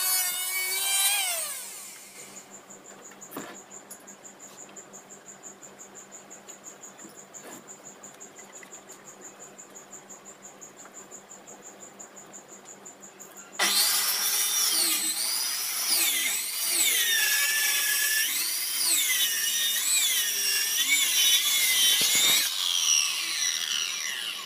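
An electric hand planer runs on a wooden board and dies away in the first two seconds. Then comes a quiet stretch with a steady high insect trill. About thirteen seconds in, an electric circular saw starts suddenly and cuts along the board, its pitch dipping and rising as the blade loads, and it runs down near the end.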